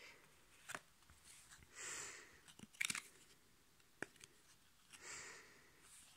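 Football trading cards being handled: a few sharp flicks of card stock and two soft swishes as cards slide against each other and the hand.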